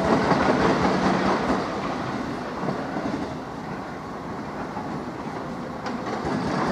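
GWR Class 387 Electrostar electric multiple unit moving away along the track, its running noise fading over the first few seconds. The noise rises again near the end.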